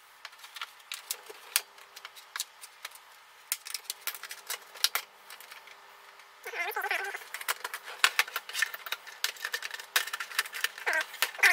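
Rapid, irregular clicks, snaps and knocks of the Chimei CMV223a monitor's plastic case as its clips are pried apart and the halves are handled, sped up four times. The rattling gets denser and louder about six and a half seconds in.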